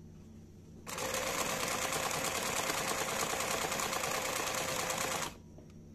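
Brother Pacesetter sewing machine stitching the closing bartack of a four-step buttonhole (step D). The motor and needle start about a second in, run steadily for about four seconds, then stop abruptly as the buttonhole is finished.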